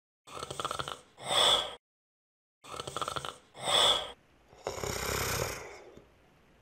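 Sharp, gasping breath sounds come in pairs, a shorter breath then a louder one, and the pair repeats twice. About four and a half seconds in, a longer rush of hissing noise lasts a little over a second.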